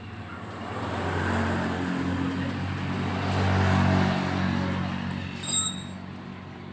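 A motor vehicle passing by, its engine hum swelling over the first few seconds and fading away, with a short sharp click near the end.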